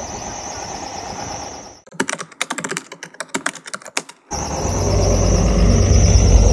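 A quick run of keyboard typing clicks, about a dozen over two seconds, with the street background cut out beneath them: an edited-in typing sound effect. It follows a steady outdoor hiss, and after it a loud low droning hum sets in and swells.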